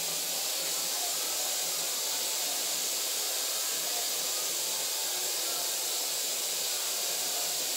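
Steady, even hiss, strongest in the high range, with no other clear sound standing out.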